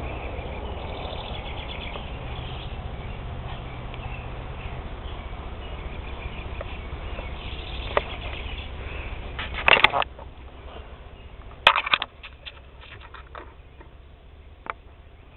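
A puppy chewing and tugging a plush toy: short rustling crunches, the loudest about ten and twelve seconds in, over a steady low rumble that drops away after the first loud crunch.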